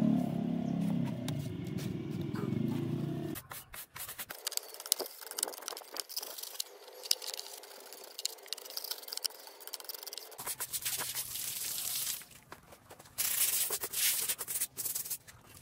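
A red sponge scrubbing across the surface of a cast cement slab, a rough, scratchy scraping in short irregular strokes, loudest in bursts near the end. A low hum fills the first three seconds.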